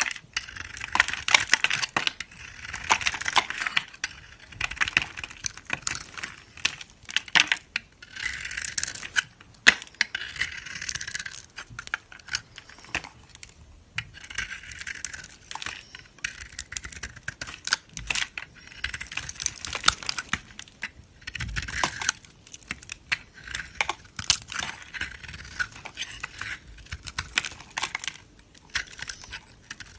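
A knife cutting through dry soap: crisp crackling and crumbling, full of sharp clicks, in repeated passes of a few seconds each.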